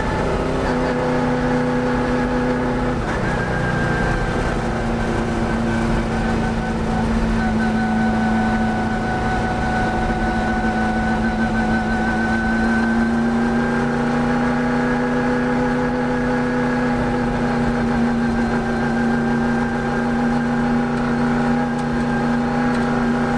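V8 engine of a historic touring race car running under load, heard from inside the cabin. It holds fairly steady revs, shifting slightly in tone a few seconds in and again about halfway through.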